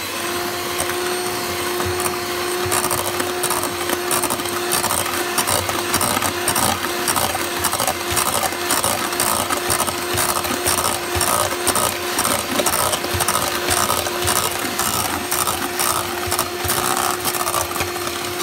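Electric hand mixer running steadily with a constant whine, its wire beaters creaming butter and brown sugar and rattling against a stainless steel bowl.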